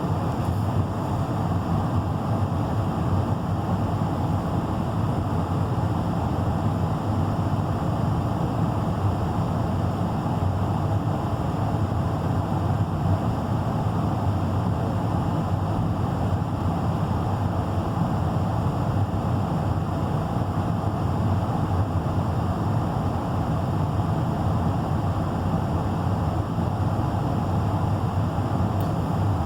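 Car's HVAC blower fan running on high with the air conditioning on: a steady rush of air from the dash vents.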